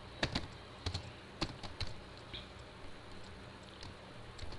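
Typing on a computer keyboard: scattered single keystrokes, several in the first two seconds, a pause, then a few more near the end.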